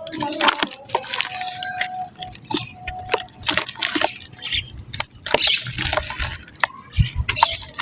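Soft dried mud crumbling into water: a quick, irregular run of wet crunches and crackles with drips and splashes.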